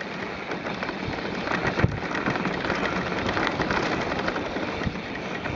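Wind rushing over the microphone and tyres rolling fast on a dirt trail as a mountain bike descends, with frequent rattling clicks from the bumps and a hard knock about two seconds in.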